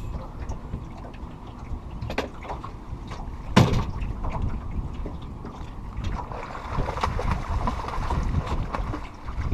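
Wind rumbling on the microphone over the low sounds of a boat on the water, with scattered handling knocks and one sharp knock about three and a half seconds in.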